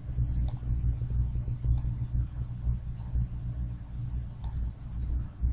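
Three sharp computer mouse clicks, about half a second, two seconds and four and a half seconds in, over a steady low hum.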